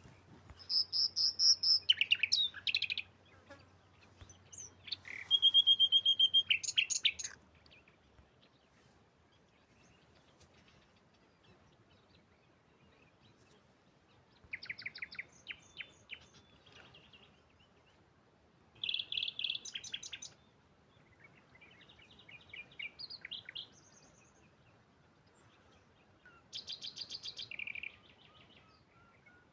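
A songbird singing in short bursts of quick chirps and trills, with several seconds of quiet between phrases. The two loudest phrases come in the first seven seconds, over a faint low hum.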